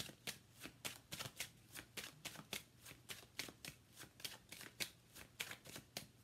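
A deck of large tarot cards being shuffled hand to hand: a quick, even run of soft card slaps, about four a second.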